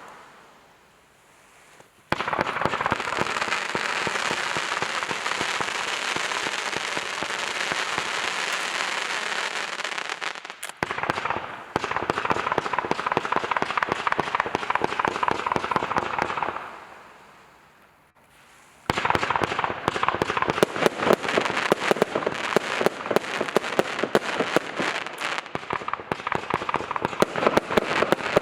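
A 196-shot compound fireworks cake firing, a dense rapid string of shots and bangs. About two seconds in the volley starts, fades away at around sixteen seconds, and a second, sharper rapid-fire run of shots begins after a short lull.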